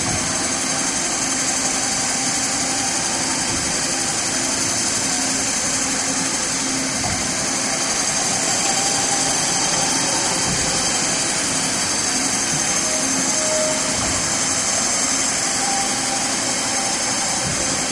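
Fadal VMC 4020 vertical machining center running a test program, its spindle turning at about 1200 RPM while the axes move: a steady mechanical whir with a high hiss above it.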